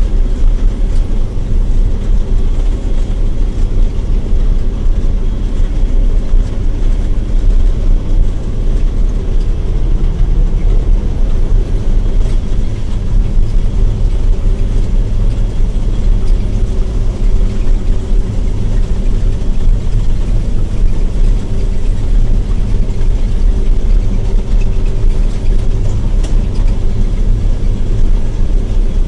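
John Deere 9700 combine running steadily while cutting wheat: a loud, unbroken low drone of engine and threshing machinery.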